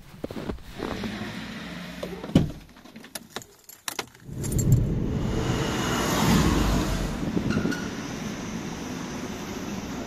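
Boots crunching through snow in step for about two seconds. After a short lull, a car drives up slowly, its tyres and engine swelling to their loudest about halfway through and then easing off.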